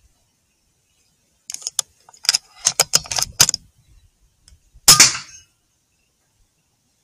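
A run of light metallic clicks and clinks, then about five seconds in a single sharp crack that dies away quickly, the loudest sound here: a shot from a .22 FX Impact M3 PCP air rifle.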